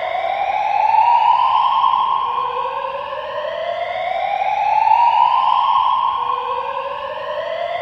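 Building fire alarm sounding a slow rising sweep tone, repeating about every four seconds. Heavy reverberation from a large open space makes each sweep linger into the next.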